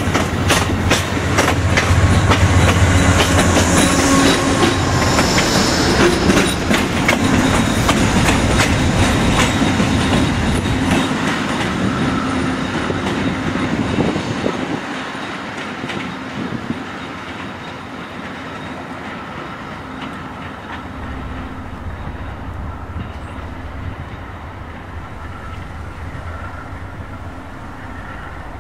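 Amtrak Downeaster passenger train pulling out behind GE P42DC diesel locomotives. For the first half its cars roll past close by, the wheels clicking rapidly over the rail joints over a loud low drone. About halfway the sound drops to a quieter, steady diesel drone as the train moves away.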